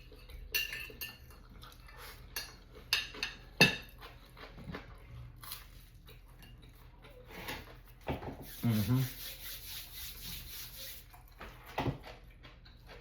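A fork clinking and scraping against a plate during a meal of spaghetti, in a series of short sharp clicks. About eight seconds in there is a longer rustling, hissing noise.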